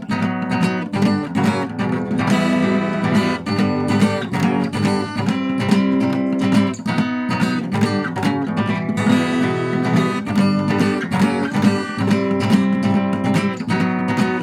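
Acoustic guitar strummed in a steady rhythm, ringing chords with no singing.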